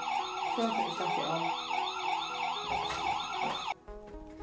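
Electronic siren of a battery-powered toy fire engine, a fast up-and-down wail of about four cycles a second that cuts off near the end.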